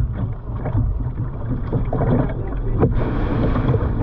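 Camera handling noise: a dense low rumble with scattered knocks and rustles as the camera is moved about close to clothing or gear.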